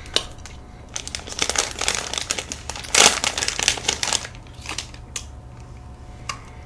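Clear plastic cookie wrapper crinkling as it is pulled open and crumpled by hand. The crackling is loudest about three seconds in, then thins to a few faint rustles.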